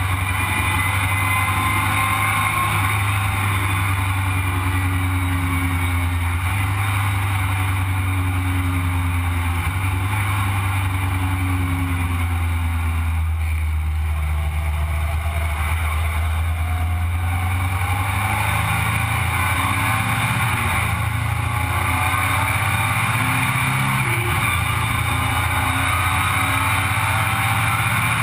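Sandrail's engine running steadily while driving on the road, with air rushing past the open frame. The engine eases off about halfway through, then its pitch rises again as it picks up speed.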